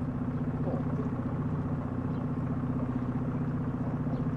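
Small sightseeing boat's outboard motor running steadily, with a fast, even engine pulse.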